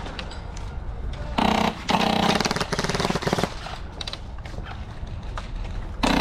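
Airsoft electric guns firing on full auto: a short burst about a second and a half in, a longer burst of about a second and a half just after, and another burst starting near the end, each a fast, even rattle of shots.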